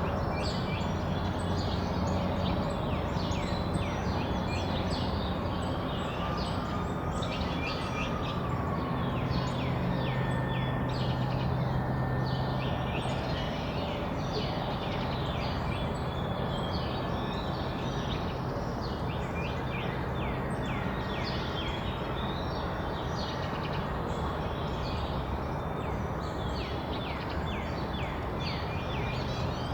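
Backyard songbirds at feeders chirping and calling, many short quick notes overlapping without pause, over a steady low background rumble.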